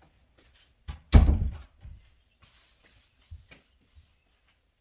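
A front door shutting with a thud about a second in, followed by a few fainter knocks.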